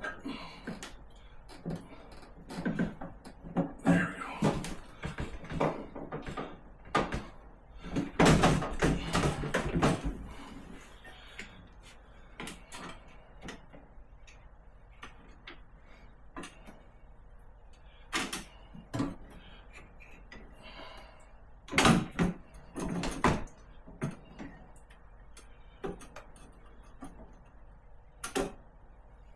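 Irregular knocks, clicks and rattles of an ice maker assembly and its wiring harness being handled and fitted into a refrigerator, busiest in the first ten seconds and again a little past the middle.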